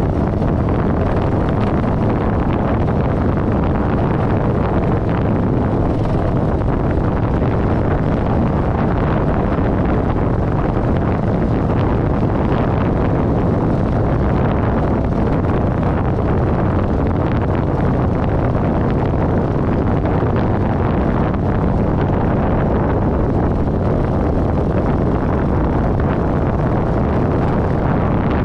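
Kawasaki Vulcan 900 V-twin motorcycle engine running steadily while riding, mixed with wind rushing over the microphone.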